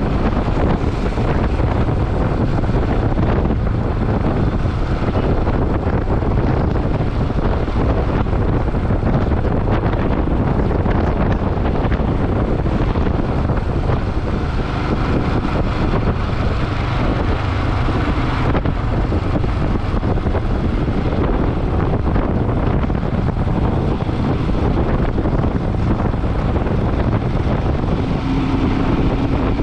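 Motorcycle on the move: steady engine and road noise, with wind rushing over the microphone.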